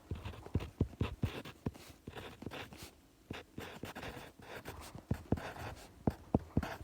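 Writing on paper close to the microphone: irregular scratchy strokes and small taps of the writing tool.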